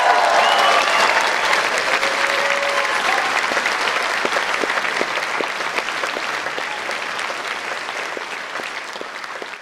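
Concert audience applauding just after the music ends, with a few cheers over the clapping in the first second or so; the applause slowly fades down.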